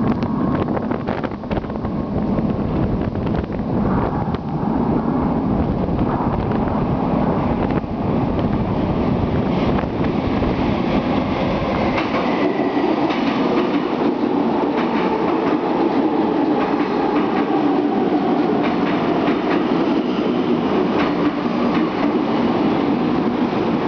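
Caracas Metro train arriving at an underground station: a heavy rumble with wheel clatter on the rails as it comes through the tunnel. From about halfway the cars run in along the platform and the sound turns to a steady whine over a lighter rumble.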